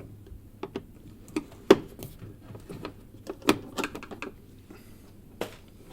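Scattered small clicks and taps of a screwdriver undoing a Phillips screw beneath a plastic washing-machine detergent drawer housing, coming at irregular intervals.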